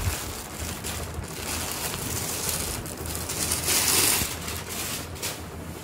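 Rustling of georgette suit fabric as it is unfolded and handled, loudest about four seconds in.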